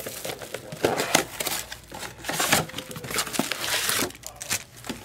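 Trading-card pack wrappers crinkling and being torn open, with irregular crackles and clicks from handling the wrappers and cards; the crinkling is densest about halfway through.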